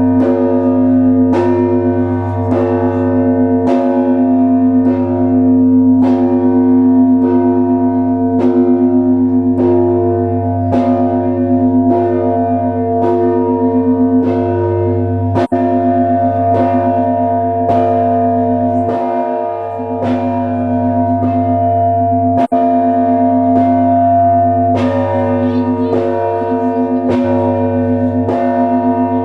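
Russian Orthodox church bells of the Trinity-Sergius Lavra bell tower ringing: bells struck in a steady rhythm, about three strokes every two seconds, over the sustained ringing of several bells and the deep hum of a large bell.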